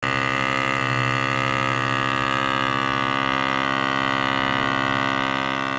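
A held chord of several steady tones with a slight regular pulsing, easing down near the end.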